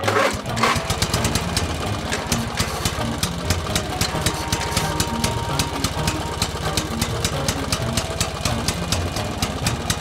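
A tractor's diesel engine running steadily, with an even, rapid knocking beat over a low rumble.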